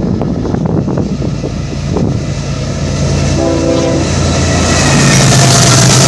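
Diesel locomotive of a CSX freight train approaching with its engine running steadily, and a short horn blast about three and a half seconds in. The train grows louder near the end as it draws close, with rail noise rising.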